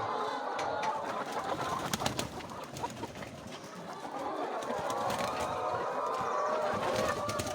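A flock of chickens making soft, overlapping trills and murmurs, with a few sharp clicks about two seconds in.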